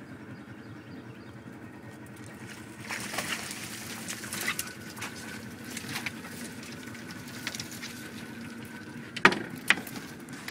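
Boat motor running steadily at idle. Over it come rustling and clattering as things are handled in the boat, with two sharp knocks about half a second apart near the end.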